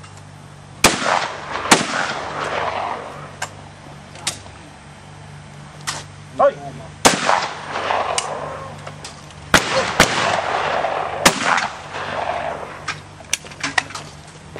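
Shotgun shots at clay targets, six loud reports in all. Two come about a second in, one near the middle, and three more close together later on, two of them a fraction of a second apart. Each is followed by a rolling echo.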